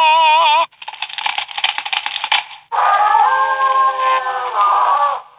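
Zyuoh The Light transformation-device toy playing its electronic sound effects: a warbling tone that cuts off under a second in, a crackling, hissing effect, then a held chord-like tone from about three seconds in that stops just before the end.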